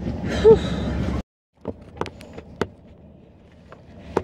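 About a second of rumbling car-interior noise with a brief vocal sound, cut off abruptly by an edit, then a quiet car cabin with several sharp clicks and taps.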